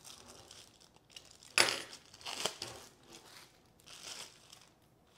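Plastic packaging being pulled off a basket and crinkled by hand, in short irregular rustles, the loudest about a second and a half in.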